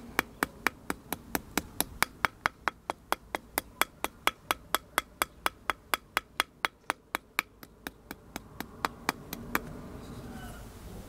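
A wooden block tapping a thin brass strip against a steel rod, bending the strip around the rod into a curve. Quick, even taps at about four a second, stopping shortly before the end.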